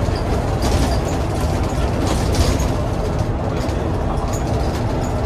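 Bus's Cummins ISBe diesel engine running under way with a steady low rumble and road noise, with scattered light clicks.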